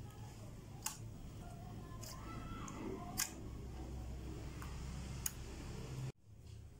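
Hands squeezing and folding thick clear slime, with four sharp clicks as trapped air pops, over a low steady hum. The sound cuts off suddenly about six seconds in.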